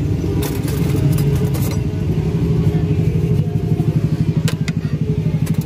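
A motor vehicle's engine running steadily: a low hum that pulses fast and evenly, most clearly in the second half, with a few short clicks over it.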